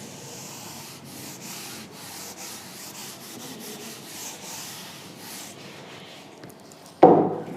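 A board eraser rubbing back and forth across a writing board, wiping it clean in repeated strokes. A sudden louder sound comes near the end.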